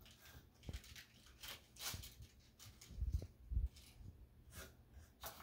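Faint rustling and handling of a folded fabric tote bag and small packaged items, in short scattered strokes, with two soft low thumps about three seconds in.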